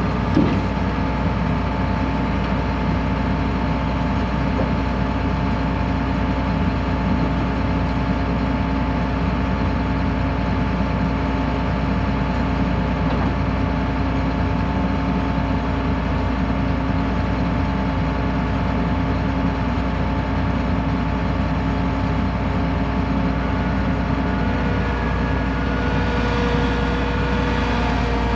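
John Deere combine's diesel engine running steadily at idle. Near the end a higher whine joins it, rising slightly in pitch.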